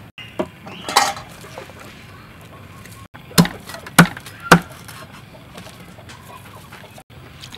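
A large kitchen knife chopping through lemongrass stalks onto a chopping board: three sharp chops about half a second apart in the middle. Near the start, a brief knock and clatter.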